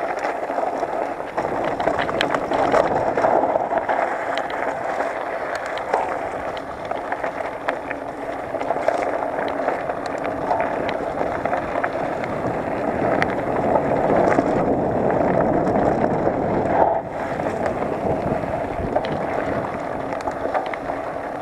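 Mountain bike rolling downhill over a dry, loose dirt and rock trail: steady rushing tyre noise with frequent small clicks and rattles from the bike.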